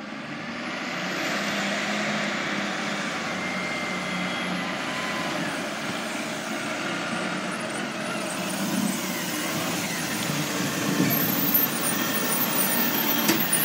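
Engine of a rear-loader garbage truck running as the truck drives up and pulls past close by, growing louder as it nears.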